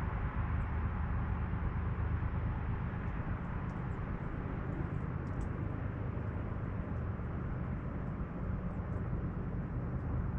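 Steady, even rushing of a flowing river, the Middle Fork of the Flathead. A few faint high ticks sit above it in the middle of the stretch.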